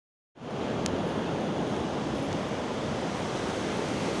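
Ocean surf breaking on a beach, mixed with wind buffeting the phone's microphone: a steady rushing noise that starts a moment in.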